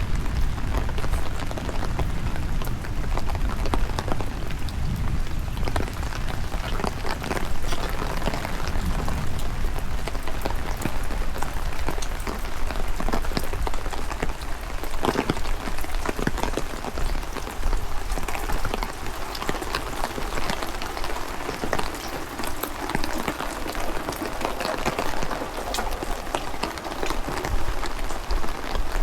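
Steady rain pattering, with many separate drop hits ticking throughout. A low rumble runs underneath, strongest at the start and near the end.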